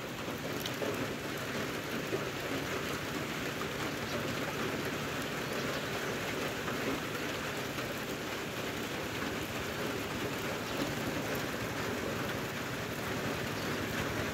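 Steady rain falling, an even hiss with no distinct drops or breaks.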